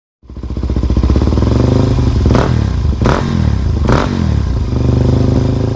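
Motorcycle engine running hard and revving, its pitch rising and falling, with three short sharp breaks about two-thirds of a second apart.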